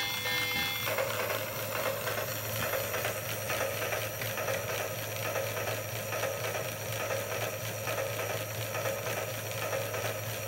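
Lionel Hudson 700E locomotive desk lamp in motion: its held whistle sound, several steady tones together, stops about a second in. Then the small motor turning the locomotive's wheels whirs and buzzes steadily, with a low hum and a fast, even ticking.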